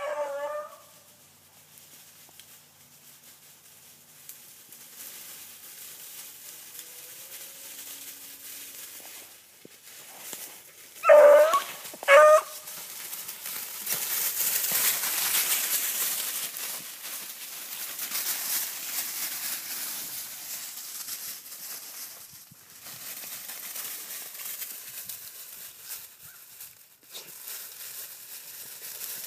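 Beagles barking: a short bark at the start, then two loud barks about 11 and 12 seconds in. In between and after, dry leaves and brush rustle steadily.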